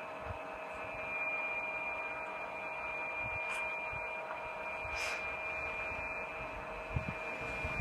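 Steady electrical hum and hiss with a thin, high, steady whine. There are a couple of faint ticks midway and a soft low thump near the end.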